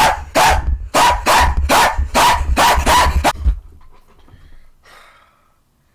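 A man barking like a dog in excitement: a rapid string of loud, hoarse barks, about three a second, with low thumps under them. They stop about three and a half seconds in, leaving only faint sounds.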